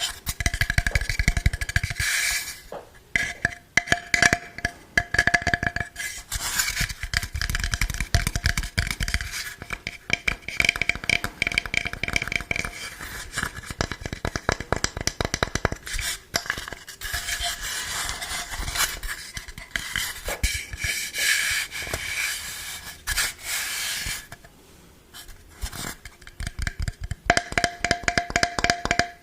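Rapid tapping and scratching on hard objects that ring, in fast dense runs of clicks, used as ASMR triggers; there is a short quieter pause about twenty-five seconds in.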